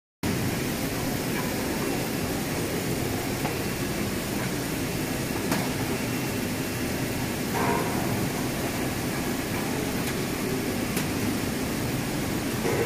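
Steady mechanical noise of sweet-potato processing machinery running, with a few sharp clicks and a brief clatter about seven and a half seconds in.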